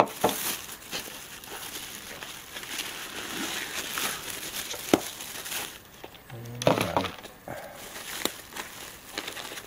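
Clear plastic bags crinkling and rustling as they are handled and pulled open by hand, with a few sharp clicks and knocks of parts against the box.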